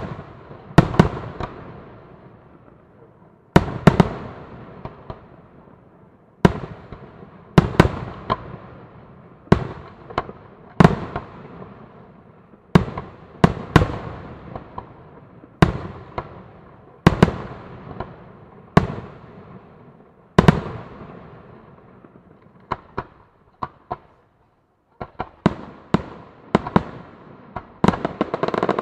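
Aerial firework shells bursting one after another, a sharp boom every one to two seconds, each fading in a long echo. Near the end the bursts come quicker and run into crackling.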